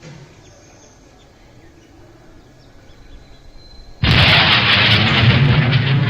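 Faint background hum, then about four seconds in a sudden loud boom that carries on as a dense rumble for several seconds: the unexplained boom, taken for a sonic boom.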